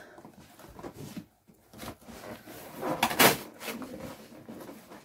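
Cardboard parcel box being cut open and handled, with a loud scraping rustle of cardboard about three seconds in and quieter handling noise around it.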